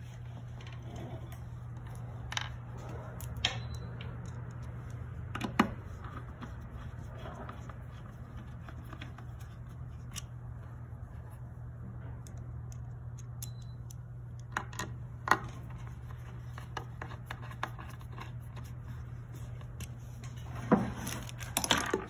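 Small metal screws and connector fittings handled and set into a plywood cabinet: a few scattered light clicks and taps, over a steady low hum.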